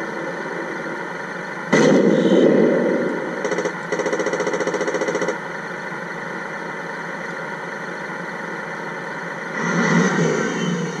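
Sound unit of a Tamiya 1/16 full-option RC M551 Sheridan tank playing its simulated engine idle through its small speaker. About two seconds in a sudden loud blast sounds, the simulated main-gun shot. A second or two later comes a rapid, evenly spaced burst of simulated machine-gun fire, and near the end the engine sound swells as the tank starts to move.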